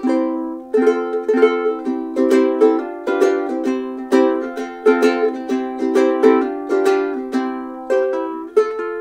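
Ukulele played in chords, a steady run of strokes a few a second with the notes ringing between them, recorded through a small Comica shotgun mic.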